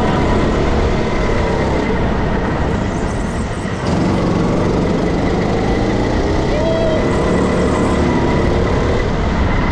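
Go-kart running at speed around a track, heard from on board: its motor is loud and steady throughout.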